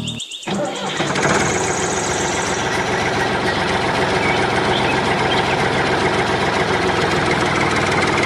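Tractor diesel engine running with a steady knocking rattle, a dubbed sound effect laid over a toy tractor. It starts about half a second in after a brief gap and grows louder about a second in.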